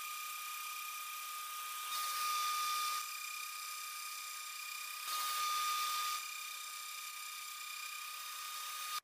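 CNC router spindle whining steadily at a high pitch while an end mill cuts slots in an aluminium part. Twice, for about a second each, the cutting grows louder and hissier.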